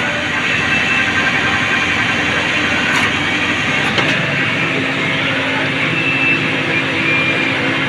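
Tractor-mounted drilling rig running, its engine and machinery making a loud, steady mechanical din, with sharp knocks about three and four seconds in.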